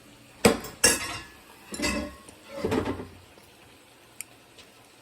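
Dishes and kitchen utensils clattering: two sharp knocks a little under half a second apart about half a second in, then two longer rattles around two and three seconds in, and a light tick near the end.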